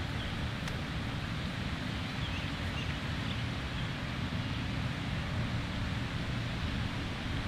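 Steady outdoor background noise at a pond bank: an even low rumble with a hiss above it, with no distinct events.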